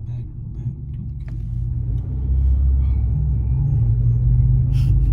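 Car running on the road, heard from inside the cabin: a steady low engine and road rumble that grows louder about two seconds in.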